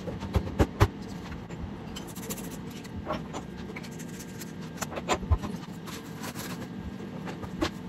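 Scattered knocks and clinks of kitchen utensils and cookware, some in quick clusters, over a steady low hum.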